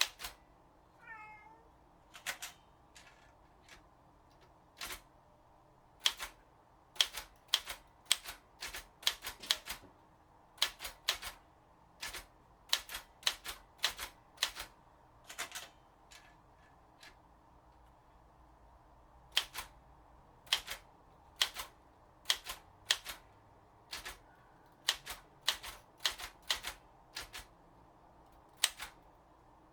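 Underwood 315 manual typewriter being typed on: irregular runs of sharp keystrikes broken by short pauses. A cat meows once about a second in.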